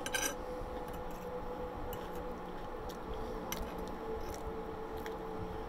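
Metal fork clinking and scraping on a ceramic plate a few times, the loudest right at the start, over a steady background hum.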